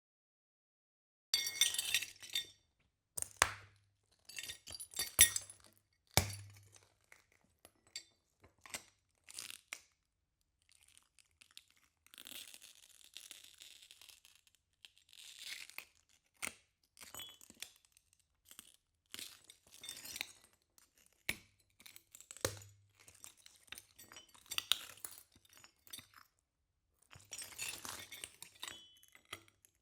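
Glass shards being crunched: an irregular run of sharp crunches and clinks in bursts with short pauses, and a softer grinding stretch partway through.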